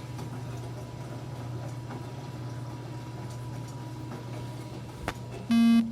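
Enxuta Júnior 2 kg compact washing machine giving off a steady low electrical hum, then a click and a loud buzzer beep from its panel near the end.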